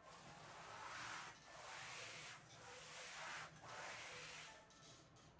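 A duster rubbing chalk off a blackboard in about four long wiping strokes, each a soft rubbing hiss lasting about a second.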